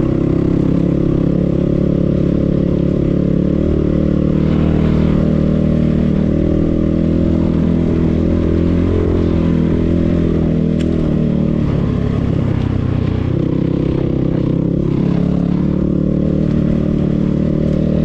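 Enduro motorcycle engine running under way on a dirt track, its pitch rising and falling as the throttle opens and closes.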